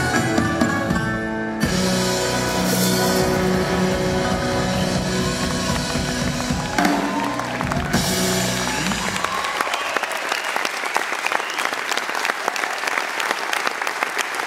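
A live band with violin and drums holds the closing notes of a song, with cymbals washing over the chords. The music stops about nine seconds in and the audience applauds.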